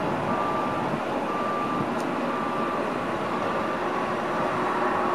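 Four-engine Airbus A340 jet on final approach: a steady rushing roar with a faint engine whine. A reversing beeper beeps about once a second for the first three seconds.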